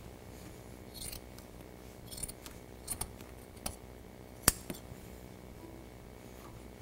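Metal scissors clicking and clinking as they are handled, a few scattered sharp clicks with the loudest about halfway, amid brief rustles of jute carpet padding being folded back.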